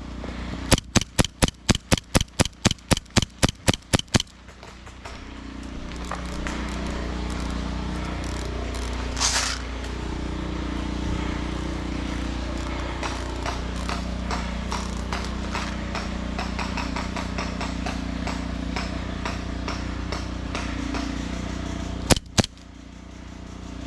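Airsoft gun fired in a quick string of about sixteen shots, four or five a second, lasting a few seconds. Later come a short hiss and, near the end, two more sharp shots.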